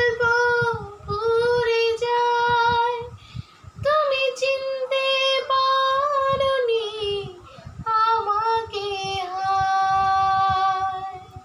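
A woman singing unaccompanied in a high voice, holding long, wavering notes across three phrases with short breaths between them.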